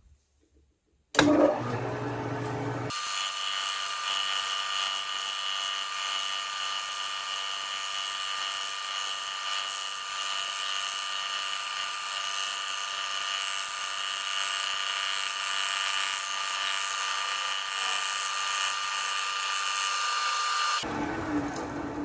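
Metal lathe spindle spinning a single-point fly cutter that cuts a bevel gear tooth: a steady high-pitched whine with cutting noise. It starts suddenly about a second in, turns shriller about three seconds in, and stops about a second before the end.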